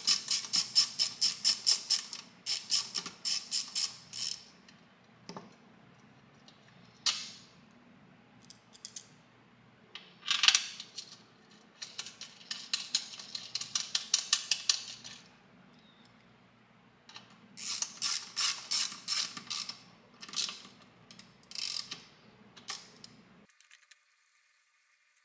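Small ratcheting driver clicking in quick runs of about six clicks a second, with pauses between runs, as bolts with washers are turned into a throttle body. A few single knocks of the tool come in between.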